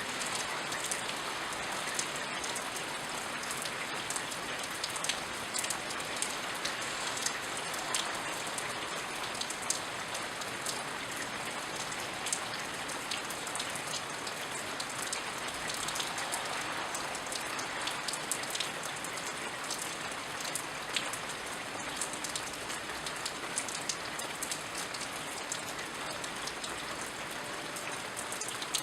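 Steady rain falling, an even hiss with many close drops pattering and dripping.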